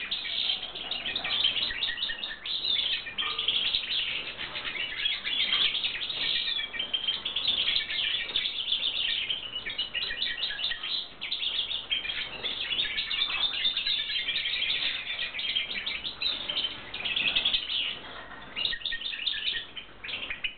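European goldfinches chirping and twittering continuously, many quick overlapping notes with a couple of brief lulls.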